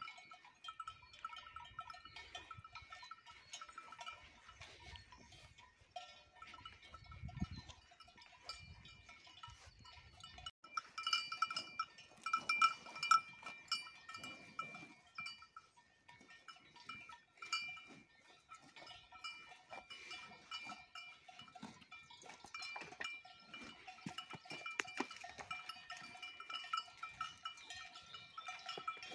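Cowbells on grazing Simmental cows ringing and clanking irregularly as the cows move and feed, louder for a few seconds near the middle.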